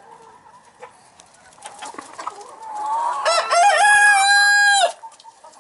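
A young Easter Egger rooster crows once, a call of under two seconds that steps up in pitch at the start, holds and drops off at the end. Soft clucking from the flock comes before it.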